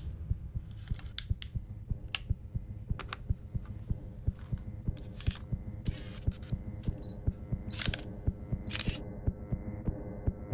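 Intro sound design: a steady low drone with a fast, even throbbing pulse, overlaid by sharp camera-shutter clicks and a few short hissing sweeps that stop about nine seconds in, leaving the drone and pulse.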